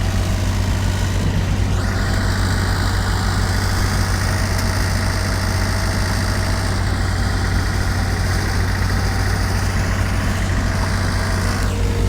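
Engine running steadily at idle with a low, even hum; the pitch rises and falls briefly near the start and again near the end.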